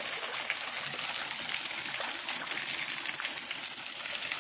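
Waterfall: water falling and splashing as a steady hiss, with small splashes breaking through.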